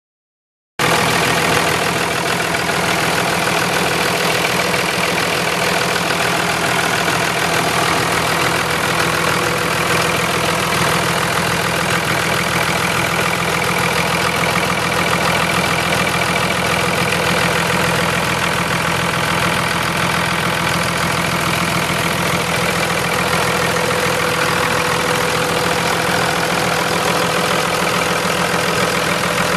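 2001 Dodge Ram 3500's 5.9 L 24-valve inline-six Cummins turbo diesel idling steadily.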